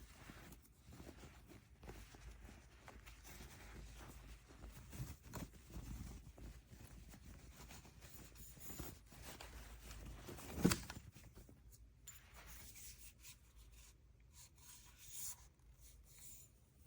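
Faint rubbing and handling noises, with one short knock about ten and a half seconds in.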